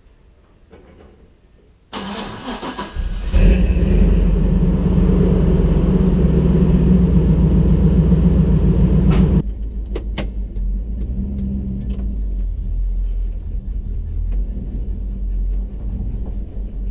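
The 8.1-liter Chevy V8 in a 1980 Chevy C30 rollback cranks about two seconds in, catches and runs loud at fast idle for about six seconds, then settles to a lower, steady idle. There are two sharp clicks just after it settles.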